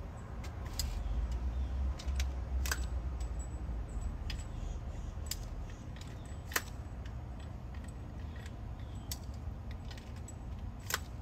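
Scattered light clicks and clinks from a portable HF antenna, its mount and a coil of wire being handled, over a low steady rumble.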